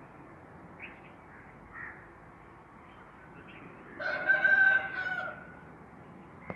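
A rooster crowing once: a single pitched call of about a second and a half, starting about four seconds in, over faint steady outdoor background noise.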